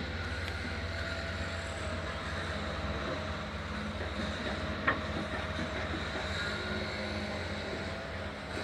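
Steady low outdoor rumble with faint hums above it, and one short sharp click about five seconds in.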